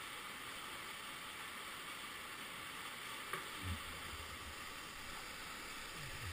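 Whitewater rushing steadily through a short river chute, an even hiss. A brief low thump comes a little after halfway.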